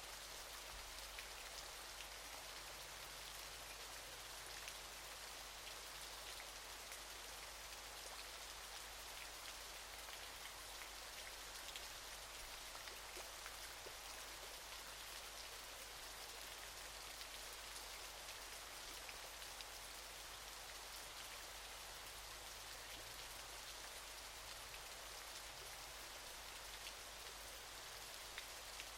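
Waterfall: an unbroken hiss of falling water with a fine patter of splashing droplets.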